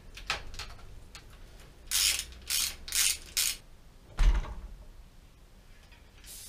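Rear wheel of a city bike being taken out of the frame: a few clicks and four short ratcheting, rattling bursts as it is worked free of the chain and dropouts, then a single heavy thump about four seconds in as the wheel comes down.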